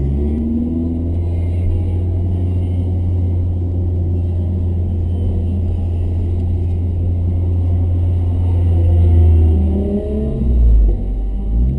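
BMW 318ti's inline-four engine heard from inside the cabin, running under load with a steady low drone. About eight seconds in the engine note rises, then breaks up near the end as the driver changes gear.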